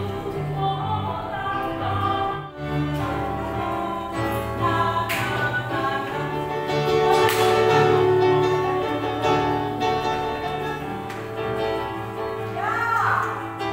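Choral music: a choir singing long held notes over a steady accompaniment.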